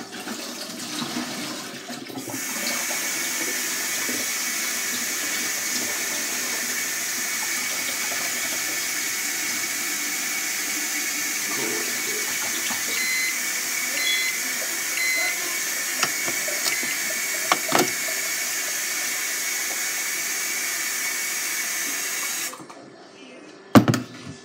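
Kitchen faucet running steadily into a stainless steel sink as a plastic cup is filled with cold water. The flow comes on full about two seconds in and is shut off sharply near the end, followed by a few knocks.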